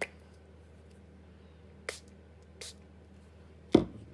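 A few light clicks and knocks from objects being handled on a craft table, then one much louder thump about three-quarters of the way through, over a faint steady low hum.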